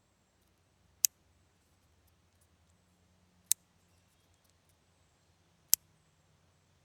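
Clothespins clicking: three sharp, separate clicks spaced about two and a half seconds apart.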